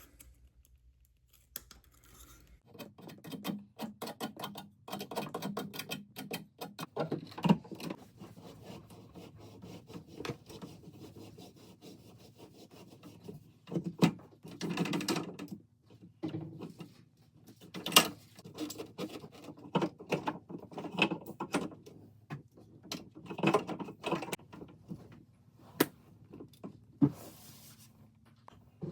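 Objects being handled at close range: irregular clicks, knocks and rubbing, with a few sharper knocks now and then.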